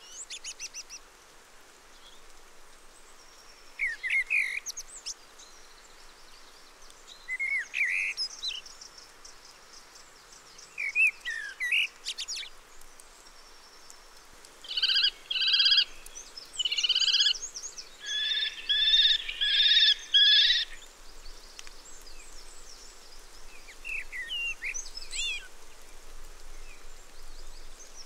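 Common kestrels calling: a few short, separate rising calls, then from about halfway a loud run of rapid, repeated shrill notes lasting several seconds, followed by fainter calls.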